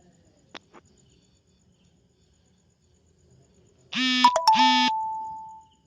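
Two short electronic buzzing beeps about four seconds in, followed by a single fading tone, like an alert or ringtone.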